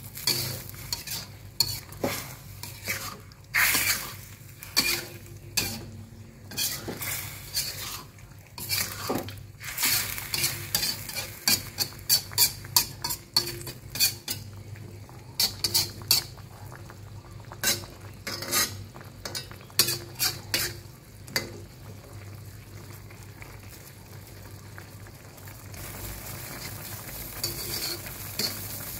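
Metal spatula scraping and clinking against a stainless steel wok while a saucy tofu stir-fry is stirred, over a steady sizzle. The scraping stops about two-thirds of the way through, leaving the sizzle and bubbling sauce.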